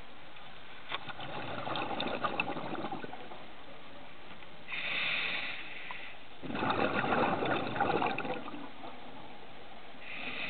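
Scuba diver breathing through a regulator underwater: a gush of exhaled bubbles about a second in and again after about six seconds, with a shorter, higher hiss of an inhalation in between.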